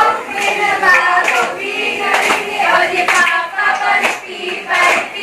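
A group of teenage voices performing a rhythmic group cheer in unison, with sharp hand claps about once a second.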